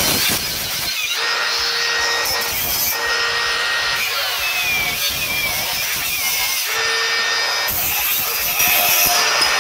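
HPT 20V cordless angle grinder's cut-off disc cutting through a steel bar, pressed hard into the cut: a continuous grinding cutting noise with the motor whine, its pitch sagging now and then under the heavy load.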